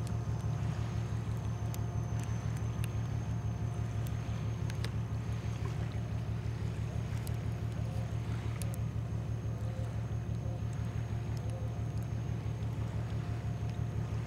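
A boat's diesel engine running steadily: a low, even throbbing drone, with a few faint clicks over it.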